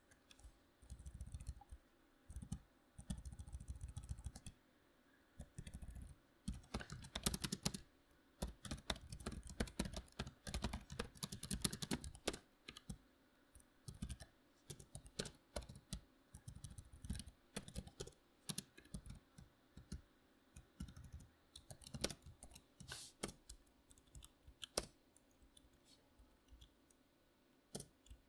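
Typing on a membrane computer keyboard: bursts of rapid keystrokes separated by short pauses, busiest in the first half and sparser toward the end.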